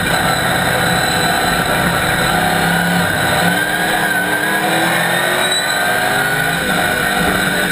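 Chevrolet Camaro race car's ZZ4 small-block V8 running hard at racing speed, heard from inside the cockpit, its revs rising and falling as the driver works through the gears and corners.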